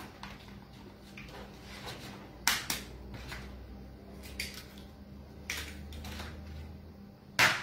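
Eggs being cracked open over a plastic mixing bowl: a series of short, sharp shell cracks and taps about a second apart, the loudest near the end.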